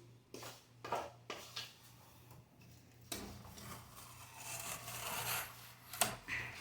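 Rubbing and scraping handling noises: a few short scrapes, then a longer rubbing scrape, and a sharp click about six seconds in.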